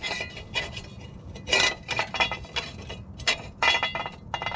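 Metal hand tool clinking and scraping against steel engine-mount hardware: a series of irregular, sharp metallic clinks with a short ring.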